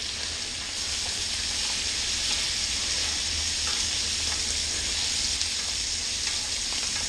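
Steak frying in butter in a cast-iron skillet: a steady sizzle, with a few faint light clicks of a spoon in the pan.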